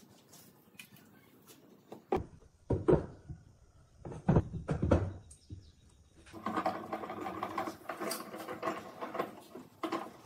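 Pine boards clunking down onto a wooden workbench a few times, then about four seconds of a rough rubbing of wood on wood as the glued boards are pushed together between pipe clamps.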